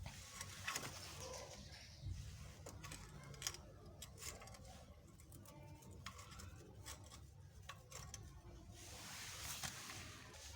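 Scattered light metallic clicks and knocks of a wheel brace being worked on a car's wheel nuts during a tyre change, with a stretch of hiss near the end.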